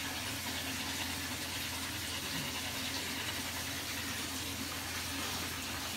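Water running steadily from a hose, a constant rushing hiss.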